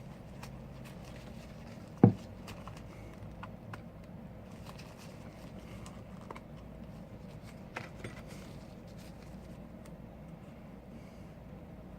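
Scattered light clicks and taps of small tools and phone parts being handled during a phone screen repair, with one loud knock about two seconds in and a smaller one near the end, over a steady low hum.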